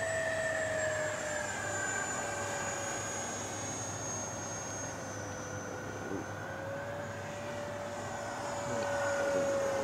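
Electric ducted-fan whine of an FMS Futura V2 80 mm EDF model jet in flight, a steady high-pitched tone. Its pitch sags slowly over the first half, rises again, and the sound grows louder near the end as the jet comes closer.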